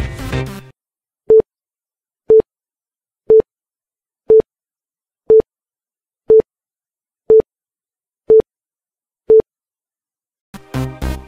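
Interval timer beeping once a second: nine short beeps, all at the same mid pitch, with silence between them. Background music cuts off just before the beeps, and electronic dance music starts near the end.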